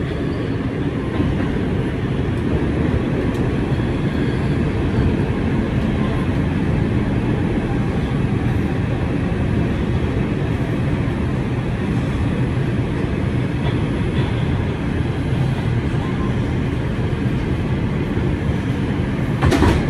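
Bombardier R142 subway car running, a steady rumble of wheels, motors and car body heard from inside the car, with a sharp knock just before the end.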